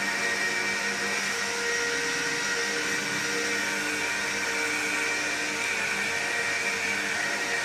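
Electric car polishing machine running steadily, buffing a freshly sandpaper-cut painted car panel to take out the sanding scratches; a steady motor whine over a hiss.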